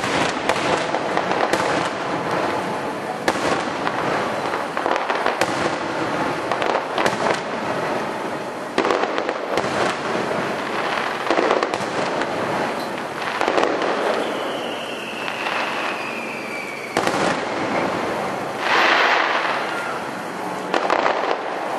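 Aerial fireworks shells bursting overhead in rapid succession, a long run of sharp bangs with crackle between them. A high tone slides slowly downward about two-thirds of the way through.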